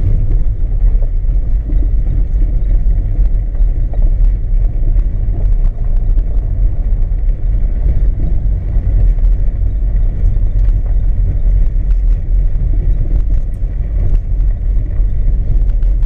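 Car driving along an unpaved dirt track, heard from inside the cabin: a steady low rumble of engine and tyres, with a few faint light ticks.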